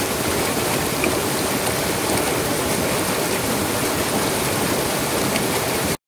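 Rain-swollen mountain stream in full spate, water rushing and splashing over boulders in small cascades with a steady, even sound. It cuts off suddenly at the end.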